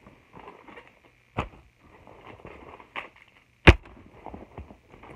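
Handling noise as a fabric backpack is moved about right against the phone: rustling with three sharp knocks, the loudest nearly four seconds in.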